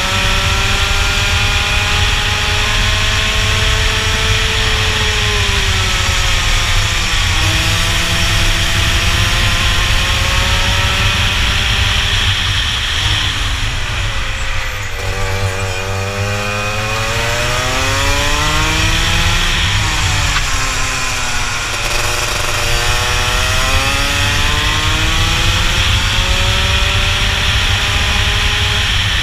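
Rotax two-stroke kart engine at racing speed, heard onboard: it revs up through the gears along each straight, then its pitch drops steeply as the kart brakes for a corner, rising again on exit. This cycle repeats about four times.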